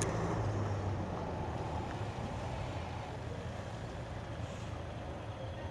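A motor vehicle engine running steadily, a low hum that is a little louder in the first second.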